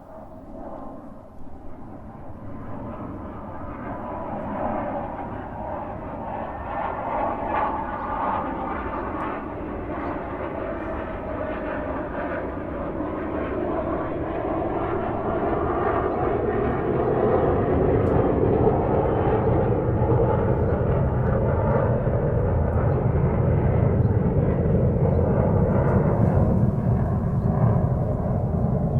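Airplane engine and wind noise heard inside the cabin: an even rushing noise that grows louder over about the first fifteen seconds, then holds steady with a strong low rumble.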